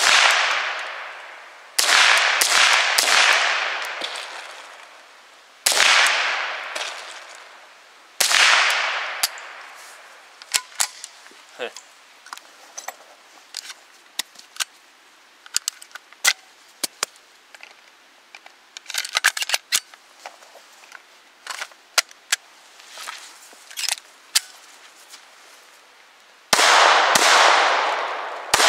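Semi-automatic .22 rifle, a Ruger 10/22 carbine, firing: one shot, then a quick string of several shots, then two more single shots, each echoing off the hillside. A stretch of small metallic clicks from handling and loading follows. Near the end a handgun fires a fast string of shots.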